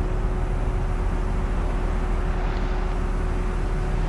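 Steady wind noise buffeting the microphone, with a constant low hum underneath.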